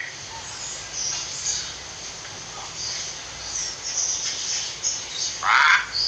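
Steady hiss with faint, high, short chirps of small birds in the background, then near the end one short, loud call from a hill myna.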